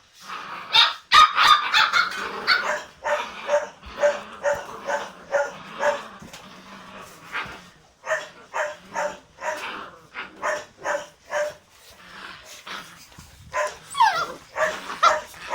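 Young puppies yapping in short, high-pitched yips, about two a second, during rough play, with a brief sliding whine near the end.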